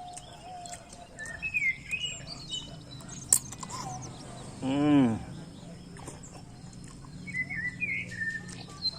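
Birds chirping outdoors in short phrases, twice, over a faint steady low hum. About five seconds in, a brief voice-like sound rising and falling in pitch is the loudest thing, and a single sharp click comes a little before it.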